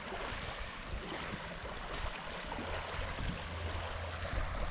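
Small lake waves lapping steadily on a sandy shore, with a low rumble of wind on the microphone.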